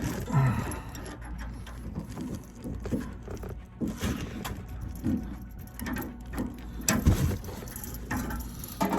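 Irregular knocks and clatter over a low steady hum, with the loudest knock about seven seconds in.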